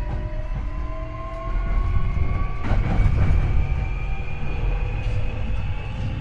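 Hankyu 8300 series electric train's Toyo IGBT-VVVF inverter and induction traction motors whining in several tones that rise steadily in pitch as the train gains speed, over a heavy rumble of wheels on rail. The rumble swells louder for about a second around the middle. This car's inverter is known for unusually high modulation and its bogie for abnormal noise.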